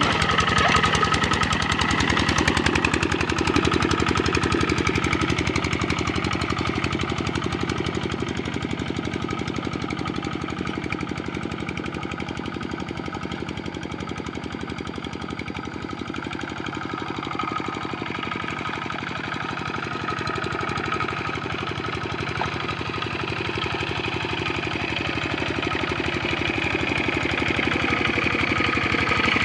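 Kubota RD65 single-cylinder diesel engine of a hand tractor running steadily, with a quick, even beat of firing pulses. It grows quieter through the middle and louder again toward the end.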